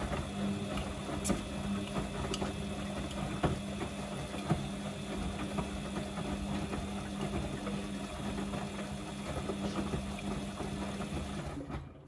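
Samsung front-loading washing machine's motor turning the drum to tumble wet laundry in the prewash: a steady hum with a strong low tone and a few sharp clicks, stopping suddenly near the end as the drum comes to rest.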